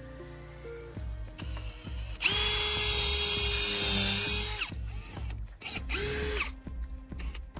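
Cordless drill driving screws into a wooden framing board. One long run of about two and a half seconds, with the motor speeding up, holding a steady whine and winding down, then a second, shorter run about a second later.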